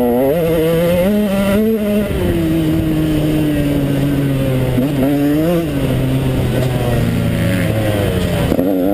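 KTM 150XC two-stroke dirt bike engine running under throttle. The revs climb and waver for the first two seconds, ease to a lower, steadier note with two quick blips about halfway, and climb again near the end.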